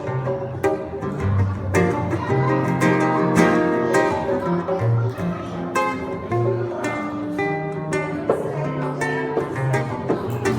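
Acoustic guitar (violão) being strummed, a run of chords changing every second or so with sharp strokes across the strings.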